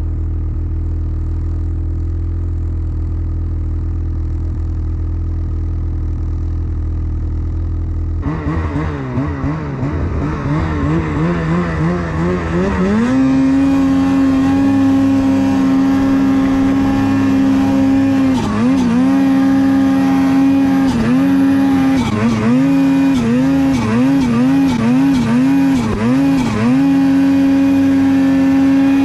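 Ski-Doo snowmobile engine: a low steady drone at first, then about eight seconds in it revs up, wavering, and settles into a high steady pitch under throttle while climbing through snow. Near the end the revs drop and pick back up several times in quick succession.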